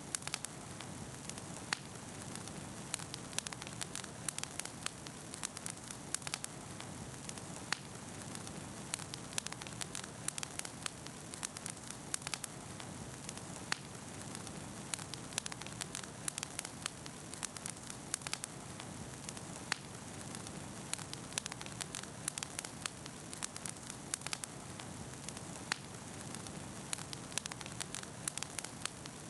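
Wood campfire burning, with a steady low rush of flame and frequent sharp crackles and pops of burning wood.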